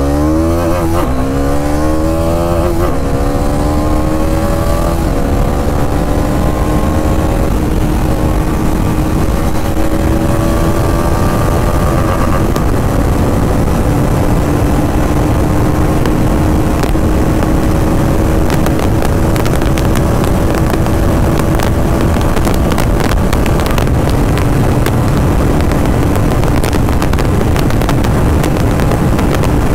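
Bajaj Dominar 400's single-cylinder engine at full throttle, climbing through the gears: the note rises and drops back at about four upshifts in the first eight seconds, then holds a slowly rising, nearly steady note in top gear as the bike nears its top speed of about 160 km/h. Wind rush on the microphone grows toward the end.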